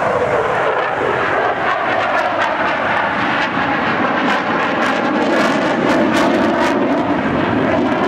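Eurofighter Typhoon's twin jet engines running loud and steady during a low display pass, with a crackling edge in the middle.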